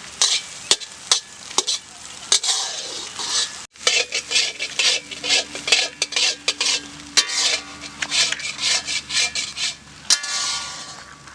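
A spoon or ladle stirring and scraping egg podimas as it fries in a pan, with a sizzle underneath and sharp clinks against the pan several times a second.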